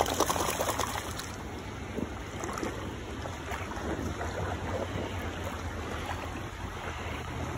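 River water splashing and sloshing around swimmers, strongest in the first second, over a low steady wind rumble on the microphone.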